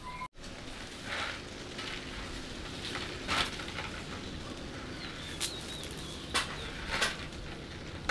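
A few scattered sharp clicks and light knocks, with a short bird chirp a little past halfway.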